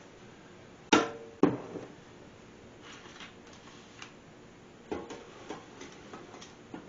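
Two sharp knocks a half-second apart, the first with a short ring, as things are set down and moved on a butcher's cutting table. Lighter clicks and taps of handling follow.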